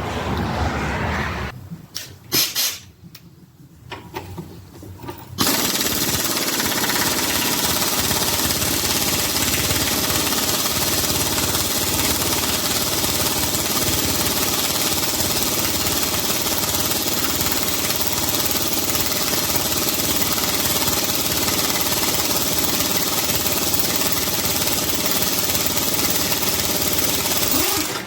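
Impact wrench hammering steadily as it drives the forcing screw of a harmonic balancer puller, drawing the balancer off a small-block Chevy 350 crankshaft. There is a short run of it at the start, a pause with a few clicks, then one long continuous run from about five seconds in until near the end.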